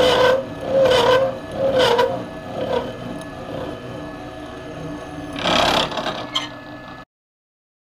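Milling machine with a 3/16-inch disc cutter cutting a slot in a steel workpiece held in a dividing head. It gives a pulsing squeal about once a second that dies away after about three seconds, then a brief louder burst near the end, and the sound cuts off suddenly about seven seconds in.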